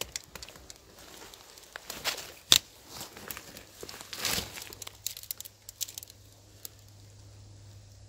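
Irregular rustling and crackling of leaf litter, moss and twigs as a mushroom picker in rubber boots steps through the undergrowth and reaches down to pick chanterelles, with one sharp crack about two and a half seconds in.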